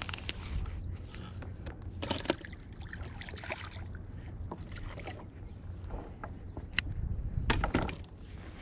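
Fishing tackle and kayak clicking and knocking as a fish is reeled up alongside and swung aboard, with a louder burst of knocks near the end, over a low rumble of wind and water.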